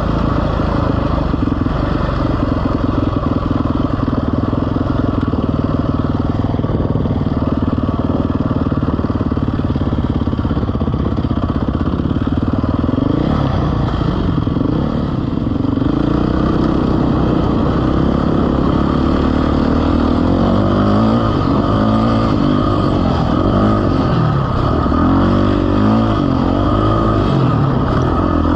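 Vehicle engine running steadily, then from about halfway through revving up and down repeatedly, its pitch rising and falling.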